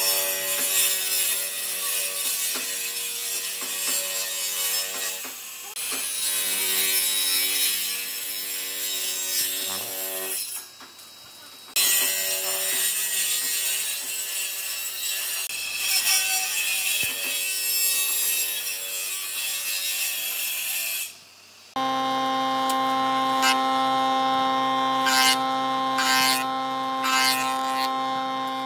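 Table saw running and ripping weathered old boat timber, in two passes with a short break between them. After a second break, a jointer runs with a steady hum and planes the rough beam, with several sharp knocks as the cutterhead bites into the uneven wood.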